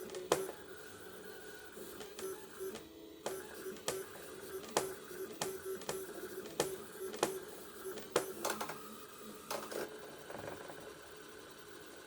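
Stepper motors of a 3D-printing robotic arm whining steadily as the arm moves, with sharp, irregular clicks about every half second to a second.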